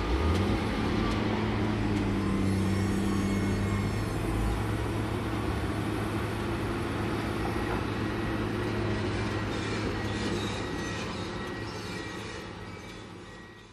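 Diesel engine of heavy earth-moving machinery running steadily with a low hum and some higher squeaks, fading down near the end.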